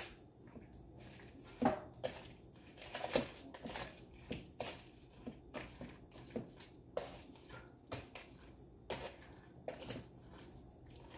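Ritz crackers being crushed by hand in a plastic container: irregular crisp crunches and crackles, one or two a second.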